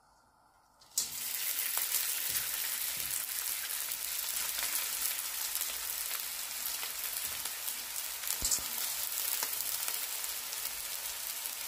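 Soaked, drained noodles frying in hot oil in a nonstick pan: the sizzle starts suddenly about a second in as they hit the oil, then keeps up as a steady hiss.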